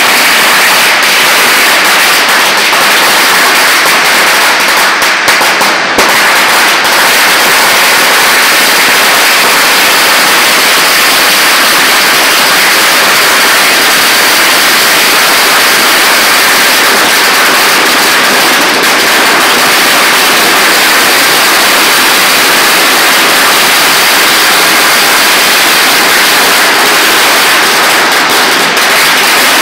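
A long string of firecrackers, a 20,000-cracker series, going off without a break: a dense, continuous rattle of bangs, very loud throughout.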